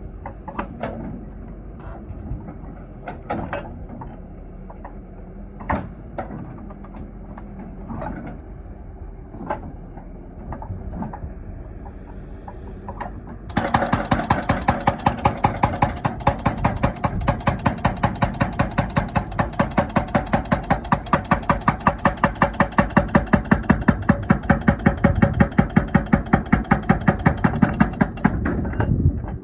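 Excavator engine running with occasional sharp knocks. About halfway in, the hydraulic breaker starts hammering in a fast, even series of loud blows, about five a second, and stops near the end.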